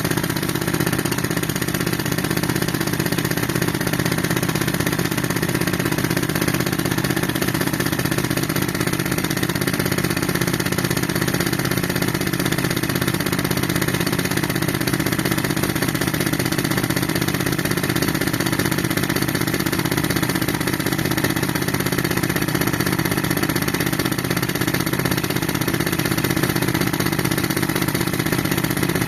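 Tractor engine running steadily under load, driving an air compressor.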